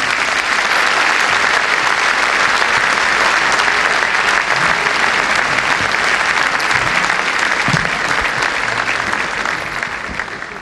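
Concert audience applauding steadily at the end of a live orchestral song, the applause dying away near the end.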